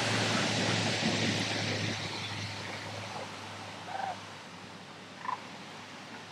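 A heavily loaded dump truck pulling an equipment trailer drives off. A broad rushing noise over a steady low engine hum is loudest at first and fades steadily as the truck moves away.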